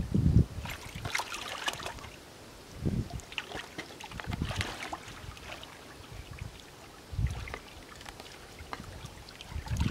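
Hands splashing and sloshing through shallow muddy water while feeling for eels by hand, in irregular bursts a second or two apart with quieter gaps between.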